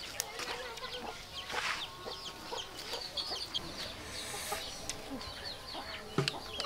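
Chickens clucking, with many short high chirps scattered throughout.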